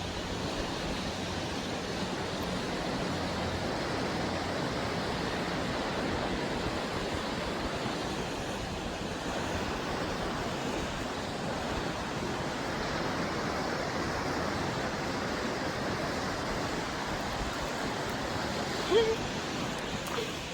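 A steady, even rushing noise outdoors, with one brief sharp sound about 19 seconds in.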